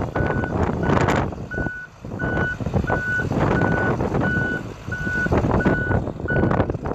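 Backup alarm on a 1994 GMC TopKick service truck beeping steadily in a single tone, about one and a half beeps a second, as the truck reverses. Its Caterpillar 3116 turbo diesel runs underneath.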